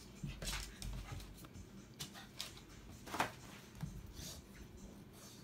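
A puppy rolling and wrestling a plush toy on a shag rug: scattered scuffling and rustling, with the loudest scuff about three seconds in.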